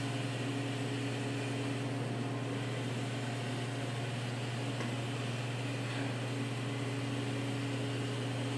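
Car lift lowering: a steady electric hum with a light hiss, even throughout.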